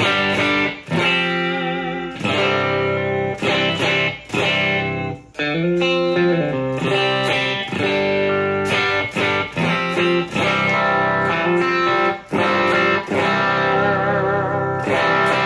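Electric guitar played through a Tank-G amp modeler running a capture of the 'Dream' base tone with a little reverb. It plays a run of chords and single notes, some with wavering pitch, broken by short pauses between phrases.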